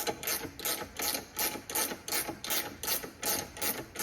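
Ratcheting box-end wrench clicking steadily, several clicks a second, as it turns the nut on a bushing-puller tool, drawing a rubber steering rack bushing out of the rack.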